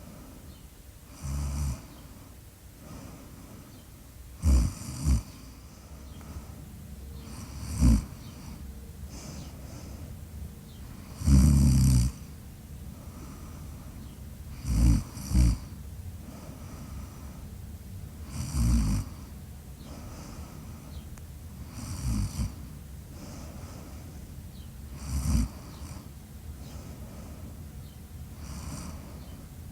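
A sleeping woman snoring in loud, short snores about every three to four seconds, nine breaths in all. Two of the breaths come as a quick double snore, and the longest snore falls near the middle.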